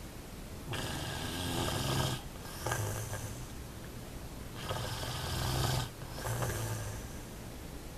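Snoring in a slow breathing rhythm: four snores in two pairs, each a longer snore followed by a shorter one, with a short pause between the pairs.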